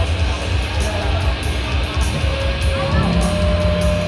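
Amplified heavy metal band on stage: a steady deep rumble of bass and drums with scattered cymbal hits, and held guitar notes ringing in about two to three seconds in.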